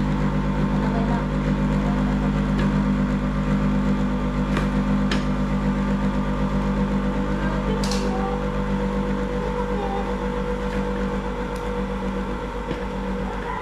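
Electric stand mixer's motor running steadily with an even hum, with a few light clicks and knocks over it.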